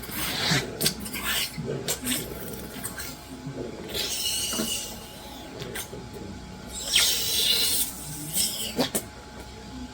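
Mechanical cough assist device pushing and pulling air through the patient's mask, heard as rushing, hissing bursts of air. The two biggest bursts come about four and seven seconds in. Low vocal sounds from the patient come in between.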